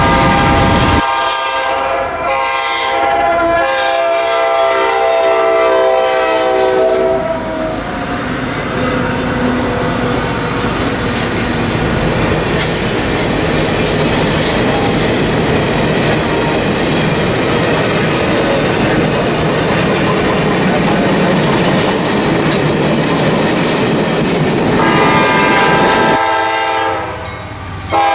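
A diesel locomotive's air horn sounds a chord in a few blasts for the first seven seconds or so, then the train rolls past close by with steady wheel and rail noise, and the horn sounds again near the end.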